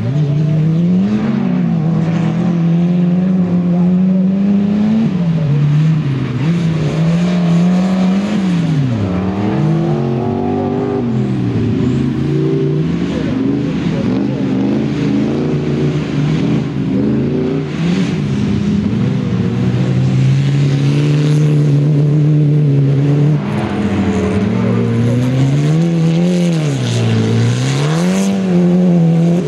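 Autocross race car engines revving hard on a dirt track. The engine note keeps climbing and dropping as the drivers accelerate, shift and lift off for corners, with two deep drops about a third of the way in and near the end.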